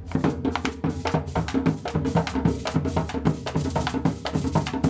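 Background music with a fast, steady drum and percussion beat.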